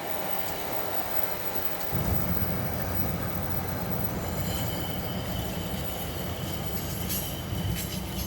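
Distant train: a low rumble that comes in about two seconds in, with a thin steady high squeal joining about halfway through.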